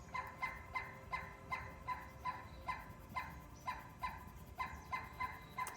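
A bird calling a long, steady series of short, identical notes, about three a second, each sliding slightly down in pitch; the series stops near the end.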